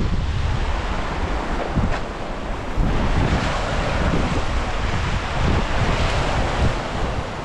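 Lake waves washing and splashing against a rocky shore, with wind buffeting the microphone in a steady low rumble.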